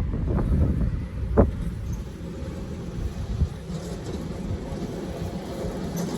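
7.25-inch gauge miniature 'Tin Turtle' locomotive running under power: a low, steady mechanical noise with a few sharp clicks or knocks, the clearest about a second and a half in.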